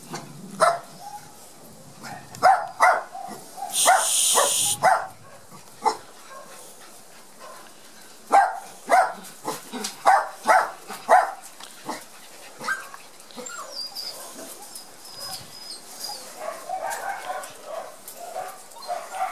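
Dogs barking in short, sharp barks, singly and in quick runs of two or three, with a hiss lasting about a second some four seconds in. Softer yips and whines near the end.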